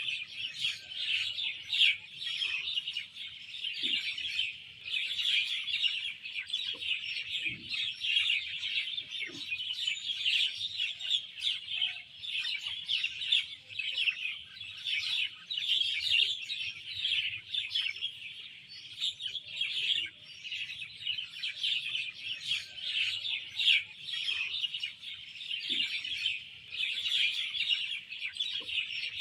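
A dense chorus of garden songbirds chirping and twittering continuously, many calls overlapping, with a few brief lower calls now and then.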